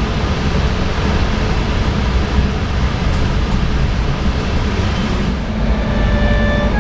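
Steady rumbling running noise of a passenger train, heard from on board as it rolls out of the station. Near the end a few held musical notes come in.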